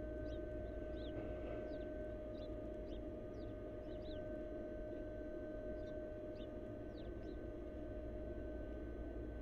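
Steady electrical hum and low rumble from a nest-box camera's microphone. About ten short, faint, downward-sliding chirps from small birds are scattered through it.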